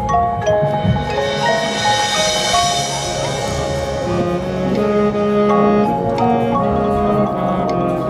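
Marching band music with mallet percussion, marimba or xylophone and bells, playing a melody of struck notes that changes every fraction of a second, with a brighter sustained chord swelling in the middle.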